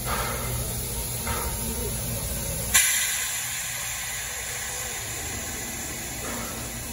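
Steam locomotive at a standstill, hissing steam. Nearly three seconds in, a sudden loud blast of steam breaks out and carries on as a strong, high hiss.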